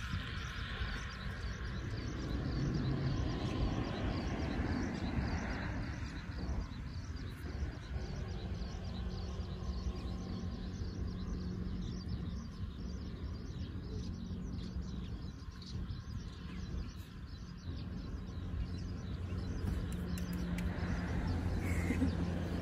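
Outdoor ambience: a steady low rumble with small birds chirping.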